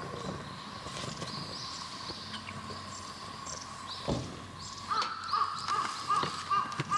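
Wild birds calling: short, high arched chirps repeat throughout, then a run of about six evenly spaced lower call notes over the last two seconds. A single knock sounds about four seconds in.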